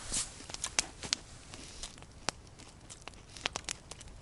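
Campfire crackling: irregular sharp pops and snaps from burning wood, with a short rustle right at the start.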